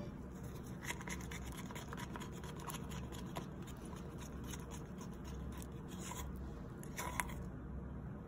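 Faint scraping and rubbing of a stirring tool working thick acrylic paint around a small cup as thickener is mixed in, with a slightly sharper knock about seven seconds in.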